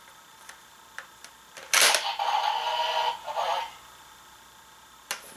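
Dragvisor Zwei toy's small speaker playing an electronic sound effect for about two seconds, starting abruptly a little under two seconds in: the card slotted into it has been read. A few light plastic clicks come before it.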